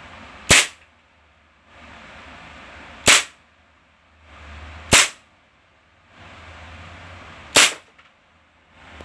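WE M92 Beretta full-metal gas blowback airsoft pistol firing four single shots on green gas. Each shot is a sharp crack, about two to two and a half seconds apart.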